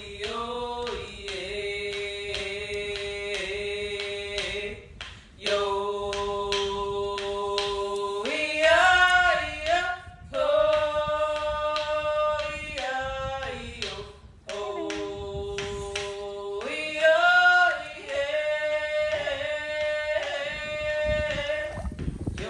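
Voices singing a song in long held notes that slide up and down between pitches, in phrases with short breaths between them, over a steady beat of light strikes.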